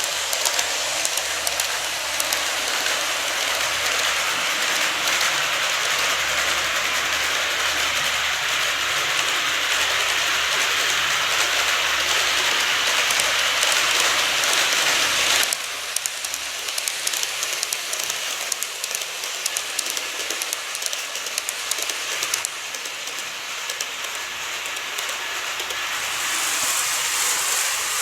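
N-gauge model train running along its track: a steady rattling, whirring noise with fine clicks from wheels and rail joints. The noise drops abruptly about halfway through.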